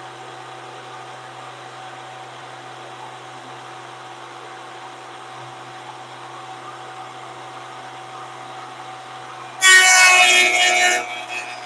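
VEVOR 13-inch benchtop thickness planer running unloaded with a steady hum. About ten seconds in, a board is fed in and the cutterhead bites with a sudden loud, high-pitched cutting whine that lasts about a second and a half, then eases off as the board keeps feeding through.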